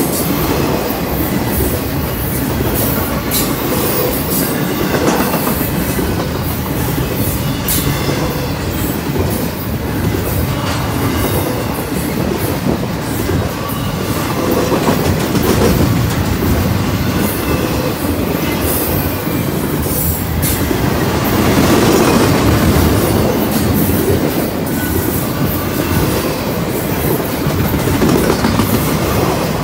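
BNSF double-stack intermodal freight train's well cars rolling past close by: a loud, steady rumble of steel wheels on rail, broken by repeated sharp clacks and knocks, with a faint high wheel squeal at times.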